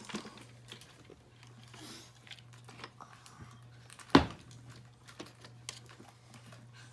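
Small plastic toys being handled, giving a scatter of light clicks and taps with one louder knock about four seconds in, over a low steady hum.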